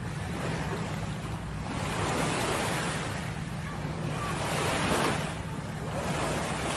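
Small waves washing up on a sandy beach, surging and easing every second or two, with wind rumbling on the microphone.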